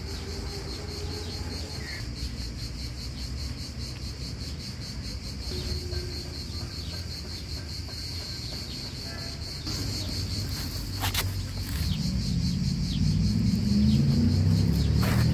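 Insects chirring steadily, a high, fast, evenly pulsing drone. A low rumble builds up over the last few seconds and becomes the loudest sound.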